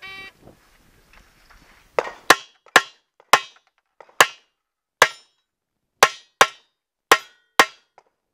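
A shot timer's start beep, then a Walther PPQ 9mm pistol firing about ten shots in quick succession, starting about two seconds in.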